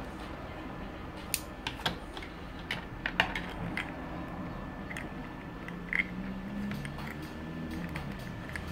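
Sharp plastic clicks and knocks from handling a car phone mount's spring-loaded plastic cradle and suction-cup arm and setting them down on a hard desk: a cluster of clicks about one and a half to three seconds in, and another near six seconds.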